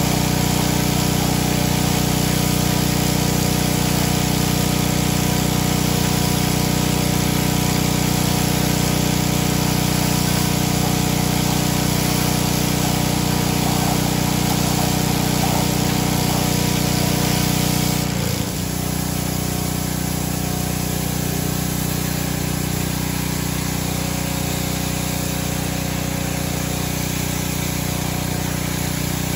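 Pressure washer running steadily, its motor and pump sounding under the hiss of water spraying from an undercarriage-cleaner attachment. About 18 seconds in the sound changes abruptly and turns slightly quieter.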